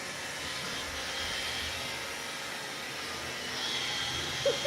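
Roomba robot vacuum running: a steady motor whir with a high whine that grows louder near the end.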